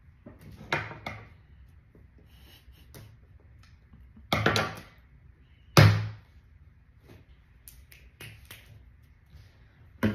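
Hard plastic mystery egg being pried and twisted open by hand: a few sharp cracks and clunks, the loudest with a heavy knock about six seconds in, and soft clicks of the shell between.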